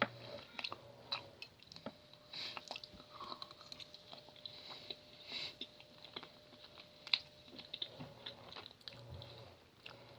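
A person chewing and biting food close to the microphone: irregular wet mouth smacks and small clicks.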